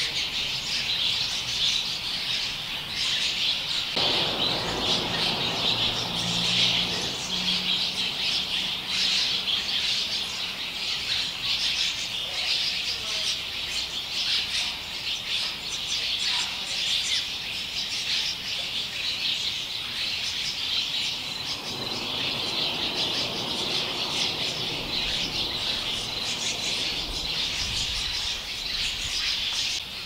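A colony of cliff swallows chattering: many high calls overlapping without a break. A low rumble comes in about four seconds in and fades, then comes again past the two-thirds mark.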